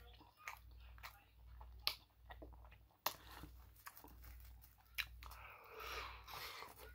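A person biting into and chewing an egg, sausage and cheese breakfast sandwich on an English muffin, close to the microphone: a run of small sharp mouth clicks, with a few louder ones, and a soft noisy rush near the end.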